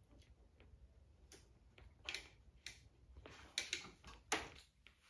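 Faint, irregular scratches and taps of a pencil writing a word on paper, with a few louder strokes in the second half.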